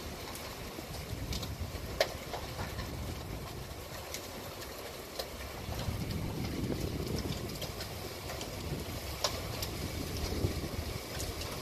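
Heavy rain and gusting wind of a severe thunderstorm: a steady rushing with a low rumble that swells about halfway through, and a few scattered sharp ticks.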